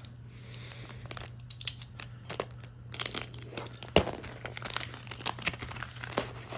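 Plastic packaging crinkling and rustling as the parts of an RC light kit are unpacked, with scattered small clicks and one sharper click about four seconds in, over a faint steady hum.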